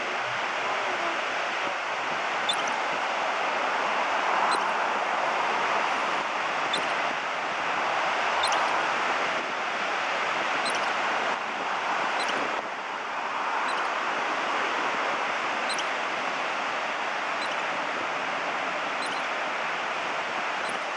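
Ocean surf washing in a steady rush that swells and eases every few seconds, with faint short high chirps about every two seconds.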